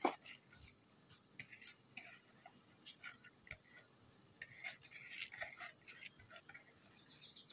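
Raw basmati rice being tipped from a plastic bowl into a pot of boiling water: faint scattered ticks and small pops of grains dropping into the simmering liquid, with one sharper click right at the start.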